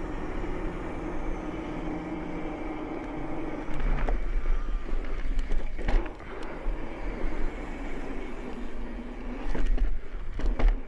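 Mountain bike knobby tyres rolling on asphalt with a steady hum, wind buffeting the microphone, and a few knocks from bumps in the pavement, about a third of the way in, around the middle and near the end.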